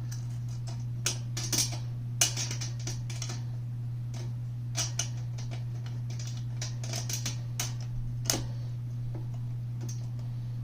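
Irregular small metal clicks and taps as machine screws are pushed through drilled holes in a flat steel corner brace and the metal bed-frame rail, over a steady low hum.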